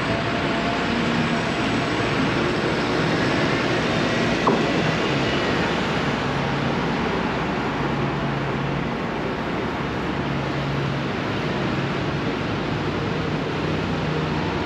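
Steady road traffic noise, with low engine hums coming and going and a single sharp knock about four and a half seconds in.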